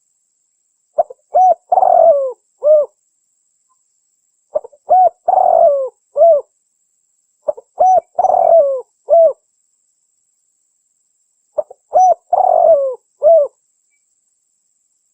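Spotted dove cooing its song four times, about every four seconds. Each phrase is a couple of short coos, a longer rough coo and a final short coo, with complete silence between phrases.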